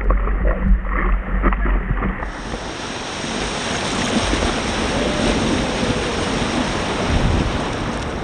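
Ocean surf washing on the beach, with wind buffeting the microphone. About two seconds in, the low wind rumble drops away and the steady hiss of the surf takes over.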